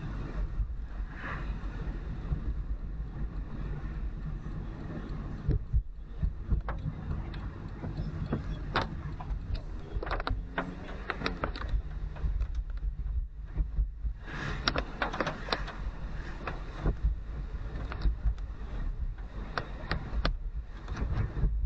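Car driving on a wet road in heavy rain: a steady low rumble of road and tyre noise with hissing spray and scattered sharp taps, busier about two-thirds of the way through.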